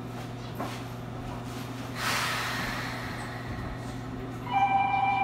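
Enoden electric train standing at a station, its equipment giving a steady low hum. About two seconds in comes a loud hiss that fades over a second or so, and near the end a loud steady electronic tone of two pitches starts sounding.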